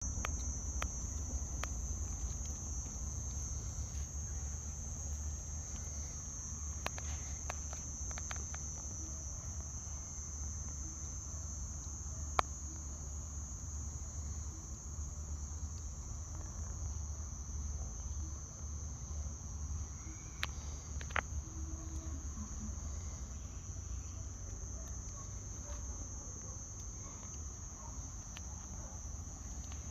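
A steady, high-pitched insect chorus, with a low rumble underneath and a few scattered sharp clicks.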